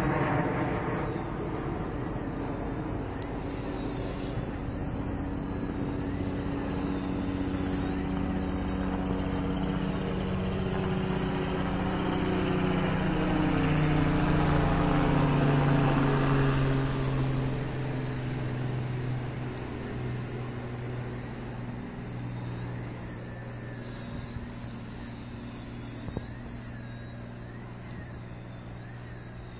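Blade Nano CP X micro collective-pitch RC helicopter in flight: the whine of its motor and rotors rising and falling in pitch, with a higher wavering whine above it. It is loudest about halfway through and fades toward the end.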